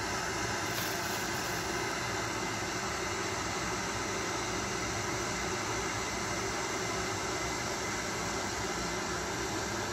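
Steady room background noise: an even hiss with a faint low hum, unchanging throughout and with no distinct events.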